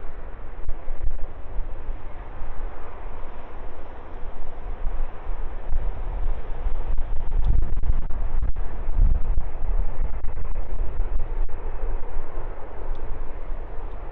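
Strong wind buffeting a phone microphone: gusty low rumble with crackling distortion from the overloaded mic.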